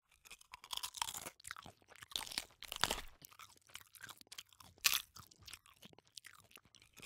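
Crunchy tortilla chips being chewed: irregular bursts of crisp crunching, the loudest about three and five seconds in.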